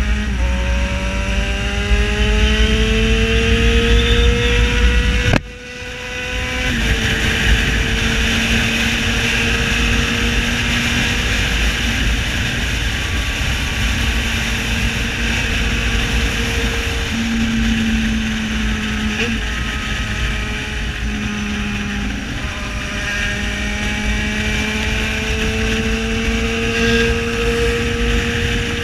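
Yamaha XJ6 motorcycle's 600 cc inline-four engine running loud, heard from the bike with wind and road rush. It climbs in pitch for about five seconds, cuts out sharply for a moment, then runs on at a steadier pitch with a couple of small steps, rising again near the end.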